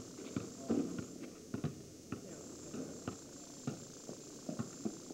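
Basketball bouncing on an asphalt driveway: a string of irregular thuds, one or two a second.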